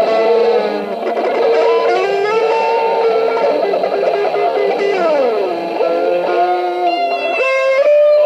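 Electric guitar playing long, sustained lead notes with bends, including a long downward pitch dive about five seconds in.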